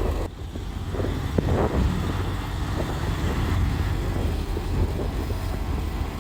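Heavy diesel engine running steadily with a low rumble, with a few faint knocks.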